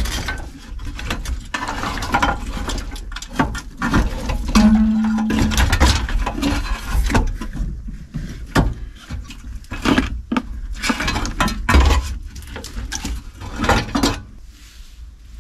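Old wiring and plastic connectors being handled and pulled from behind a 1968 Pontiac LeMans dashboard: repeated clicks, knocks and rustling, with a brief low hum about five seconds in.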